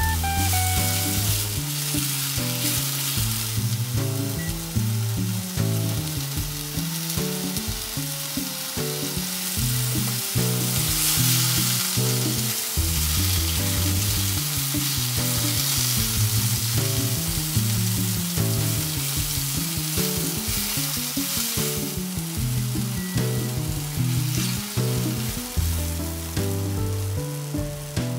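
Mixed mushrooms, chanterelles and shimeji among them, sizzling as they sauté in a hot frying pan, with a utensil stirring them around. Background music with a moving bass line plays throughout.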